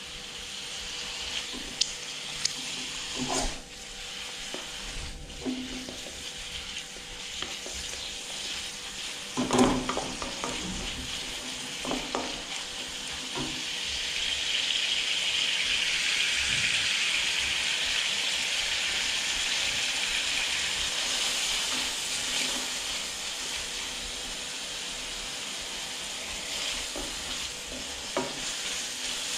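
Food sizzling in a hot wok as it is stir-fried, with a few knocks of the stirring utensil against the pan. The sizzle swells louder about halfway through, then settles back.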